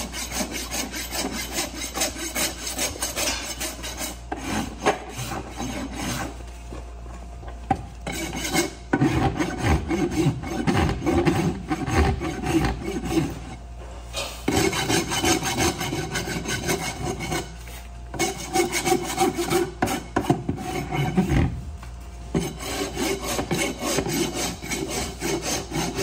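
Farrier's hoof rasp filing a horse's hoof: quick, rhythmic strokes of steel across hoof horn, in several runs with short pauses between them.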